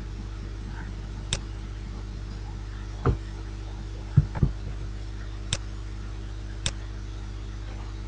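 A computer mouse clicking a few separate times, with a couple of duller low knocks in the middle, over a steady low electrical hum.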